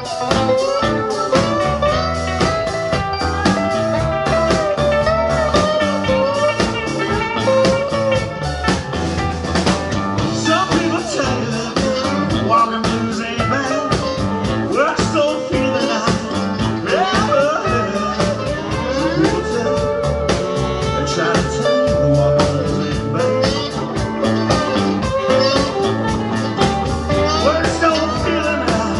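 Live blues band playing an instrumental passage: electric guitars, bass guitar, drum kit and keyboard, with a saxophone playing a melodic line that holds and bends its notes over a steady bass and drum groove.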